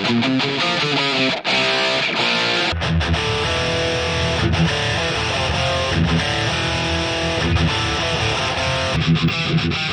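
Distorted high-gain electric guitar playing a heavy metal riff. About three seconds in, a heavier low end comes in under it.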